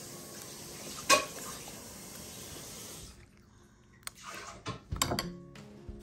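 A metal spoon stirring a thick sour-cream and cottage-cheese dip in a glass bowl, knocking and scraping against the glass: one sharp clink about a second in, then several clinks and scrapes near the end.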